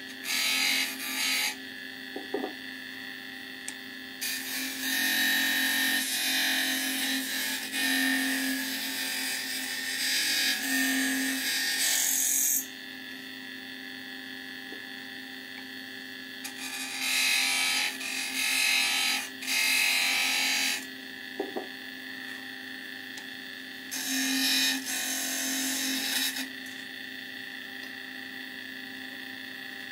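Wood lathe running with a steady motor hum while a hand-held turning tool cuts the spinning wooden spindle in several passes, each a few seconds of loud scraping. A long cut runs from about 4 to 12 seconds in, with shorter ones around 17 to 21 and 24 to 26 seconds.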